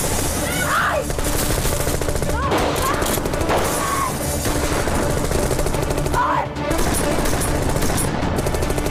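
Heavy gunfire from pistols and automatic weapons, rapid shots with hardly a pause, mixed over dramatic background music.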